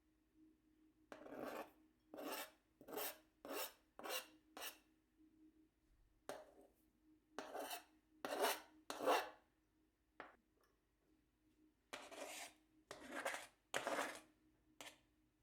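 Boiled potatoes being grated by hand: a quick run of about six rasping strokes, then more strokes in irregular bunches.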